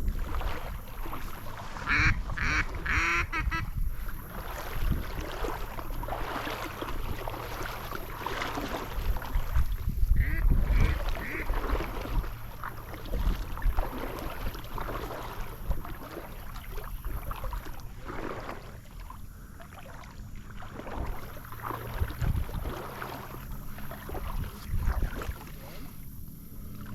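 Duck quacks in short runs, about two seconds in and again around ten seconds in, over steady sloshing of water and wind.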